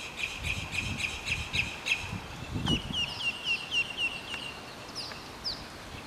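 Purple gallinule calling: a fast run of sharp, high notes, about five a second, then a slower run of short upward-hooked notes, and two single notes near the end.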